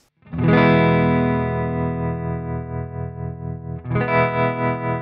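Electric guitar through a JAM Pedals Harmonious Monk tremolo pedal: a chord is strummed and left to ring with a pulsing volume tremolo, then a second chord is struck about four seconds in. The pedal's mix knob is being turned up, bringing the tremolo in more strongly.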